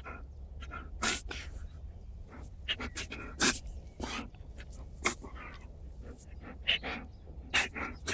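Groenendael (Belgian Shepherd) dog sneezing again and again: short, sharp bursts of air through the nose, about half a dozen in eight seconds.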